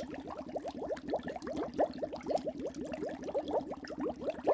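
Water bubbling and gurgling: a dense, continuous stream of quick rising blips.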